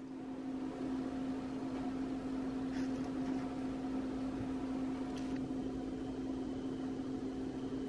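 Steady low hum of a household appliance running, a constant low tone with a fainter higher one above it. Two faint light taps come about three and five seconds in.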